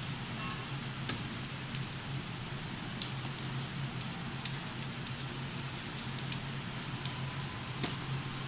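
Screwdriver working on the power-supply screws at the back of a steel computer case: scattered small metallic clicks and scrapes, the sharpest about three seconds in, over a steady low hum.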